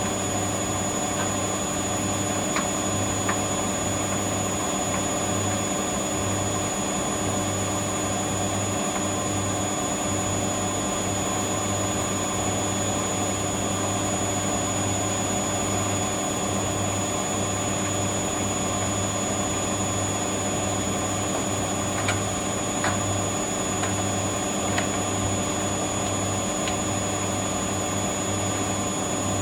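Hoover Dynamic Next washer-dryer spinning steadily near its top speed of about 1,200 rpm: a constant drone with a high whine over it, which the owner puts down to the motor bearing screeching. A few faint clicks come through now and then.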